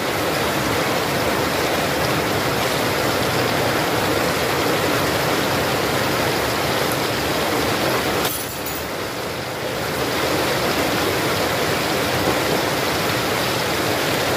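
Catfish deep-frying in hot oil in a wok: a steady, even sizzle that eases slightly about eight seconds in. The fish is dusted with flour, which keeps the oil calm instead of spattering.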